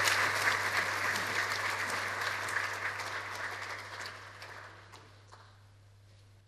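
Audience applause, dense clapping at the start that thins out and dies away over the last two seconds.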